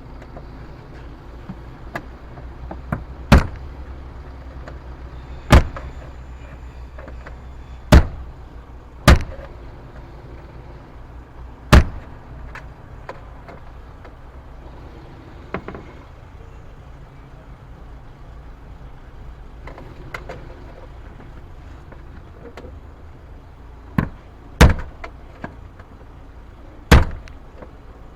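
A series of loud, sharp knocks at irregular intervals, about a dozen, with a quiet spell in the middle, over a low steady hum.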